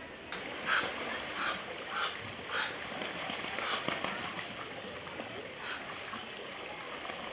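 Birds calling: a run of short, repeated calls about twice a second that thins out after about three seconds.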